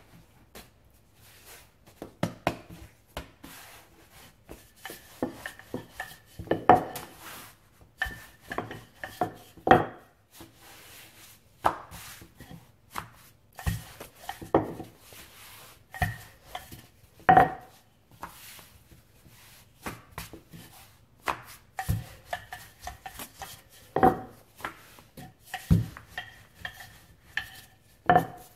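Wooden rolling pin knocking and rolling on a worktop as layers of croissant dough are rolled out: irregular knocks every second or two, some ringing briefly, with rubbing in between.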